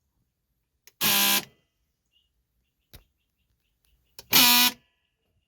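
Vehicle horn sounding twice, each blast about half a second long and a few seconds apart, with a short click just before each.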